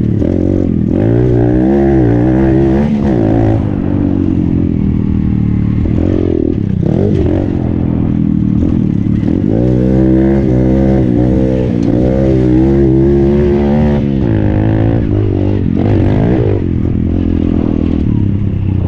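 Pit bike's small single-cylinder engine revving up and down repeatedly, the pitch climbing and dropping several times as it is ridden around a dirt track.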